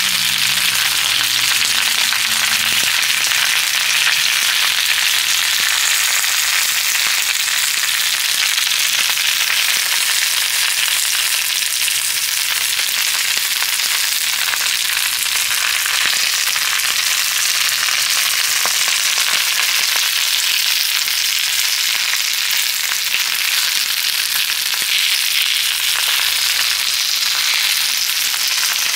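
Food frying in a hot pan: a steady, continuous sizzle.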